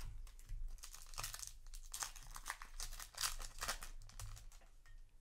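Foil wrapper of a Yu-Gi-Oh! booster pack crinkling as it is torn open by hand, in a run of crackles strongest through the middle.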